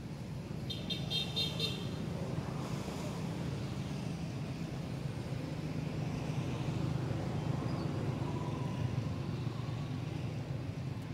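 Steady low rumble of engines and road traffic. About a second in comes a brief high, pulsing tone.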